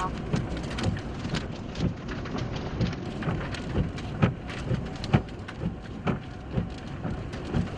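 Heavy storm rain and wind: a steady rushing noise with many sharp, irregular drop hits close to the microphone, a few louder ones about four and five seconds in.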